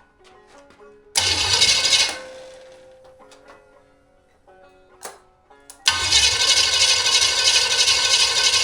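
Cold 1973 Chevy 350 small-block V8 being cranked over twice by its starter: once for about a second, about a second in, then again from about six seconds in, where it keeps going steadily. This is a cold start to test a freshly readjusted cold (fast) idle screw on the carburettor. Plucked-string background music plays underneath.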